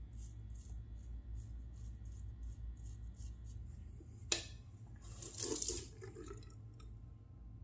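A Parker PTBABK adjustable shavette razor scraping through lathered stubble in short strokes, about two or three a second. About four seconds in there is a sharp knock, then a brief rush of tap water as the razor is rinsed in the sink.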